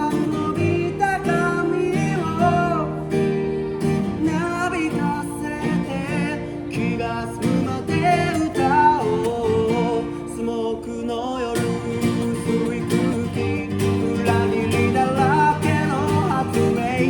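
Acoustic guitar strummed steadily under a wavering sung melody line, as in a solo folk song.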